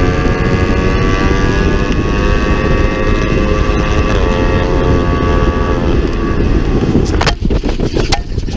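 Kawasaki Ninja 300's parallel-twin engine running hard at high revs under wind noise, its pitch dipping briefly about four seconds in. After about six seconds the engine note fades into rushing noise, and several sharp knocks follow in the last second and a half as the bike collides with a slower rider and goes down.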